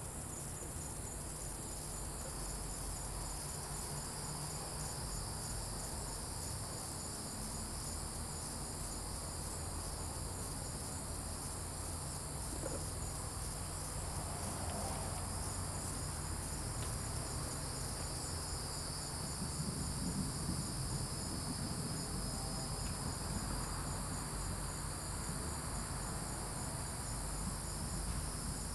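Night chorus of crickets and other insects: a steady high trill with a fast, evenly pulsing note running through it, over a low steady hum.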